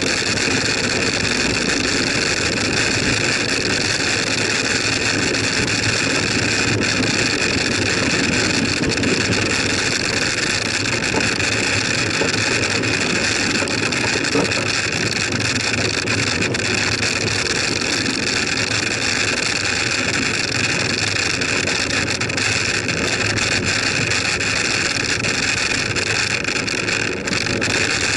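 Steady wind rush and tyre noise on the microphone of a camera mounted on a moving bicycle, an even rumble and hiss with no breaks.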